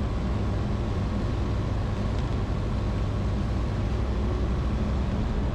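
The 100-hp Rotax 912ULS engine and propeller of a Zenith STOL CH 701 light aircraft in flight, a steady drone with no change in pitch, at low power on final approach.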